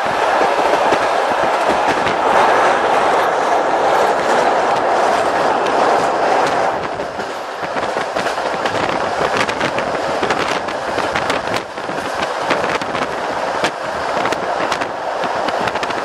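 Passenger train rolling at speed, heard from inside a carriage: a steady rushing rolling noise that eases off about seven seconds in, then sharp clicks of the wheels over the rail joints through the second half.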